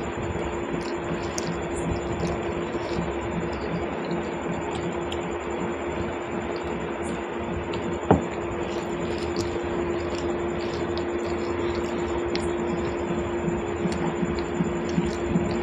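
Steady hum and hiss in a small room, with faint squishing, small mouth clicks and smacks from rice being mixed and eaten by hand, and one sharp click about eight seconds in.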